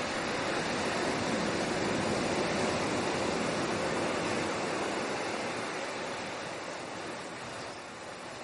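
Sea surf: a wash of wave noise that swells over the first few seconds and then slowly fades.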